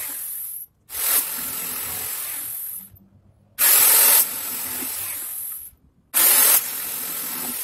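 Electric jigsaw cutting through a wooden broomstick dowel. The cuts come in runs of about two seconds with short breaks between them, the third and fourth opening louder for the first half-second.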